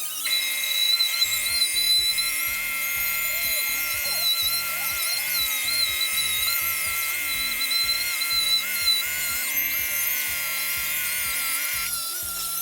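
Grinder fitted with a wire brush wheel whining, its pitch wavering with load as it strips old paint off a metal motorcycle part. Background music with a steady beat plays under it.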